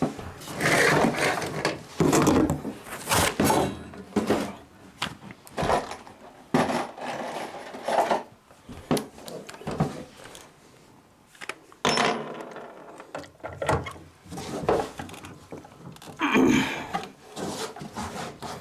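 Wooden 2x4 framing around a bathtub being pushed and knocked into line: irregular wooden knocks, scrapes and rubbing, with a short lull a little past the middle.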